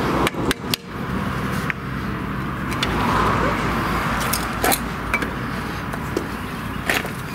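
Sharp metal clicks and scrapes from a small pry tool working against the rusted hub of a stuck 2002 Ford Focus rear brake drum and bearing assembly, about eight of them at uneven intervals, over a steady background rumble.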